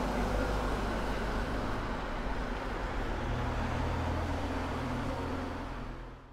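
Street traffic noise: a steady rush, with a low engine hum that grows stronger partway through. It fades out near the end.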